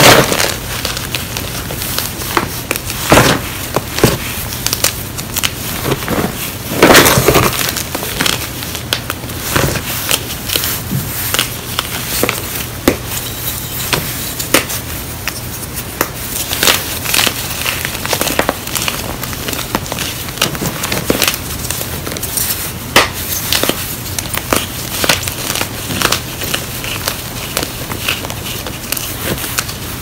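Hands crushing and crumbling blocks of gym chalk over a tray of loose chalk pieces: a dense run of dry crunches and crackles, with louder crunches every few seconds.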